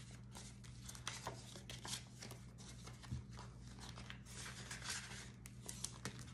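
Faint rustling and crinkling of paper banknotes and a plastic binder pouch being handled, with many small crackles and ticks over a low steady hum.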